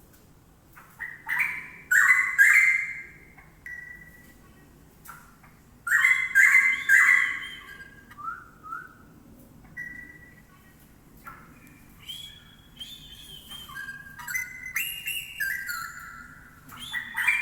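Straw-headed bulbul (cucak rowo) singing loud, bubbling warbled phrases. Two strong bursts come near the start and about six seconds in, then a run of shorter notes that step up and down in pitch.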